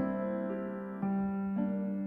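Soft background piano music: gentle sustained chords with notes struck about every half second over a held low note.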